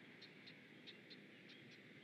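Near-silent outdoor ambience with a steady hiss and faint high chirps repeating in pairs, about two pairs a second.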